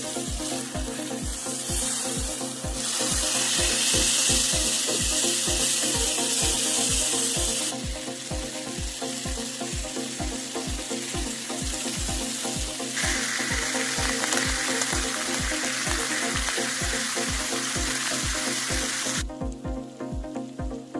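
Food sizzling as it fries, the hiss jumping in level a few times and dropping away near the end, over background music with a steady beat.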